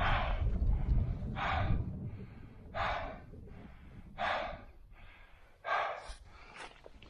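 A climber breathing hard through the mouth while scrambling, short sharp breaths about every second and a half, with a low rumble in the first two seconds.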